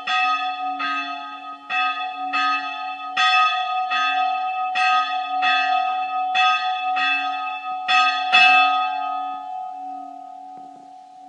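The bell of Spiekeroog's Old Island Church tolling, struck a little more than once a second. The strokes stop about eight and a half seconds in, and the bell's hum rings on and slowly fades.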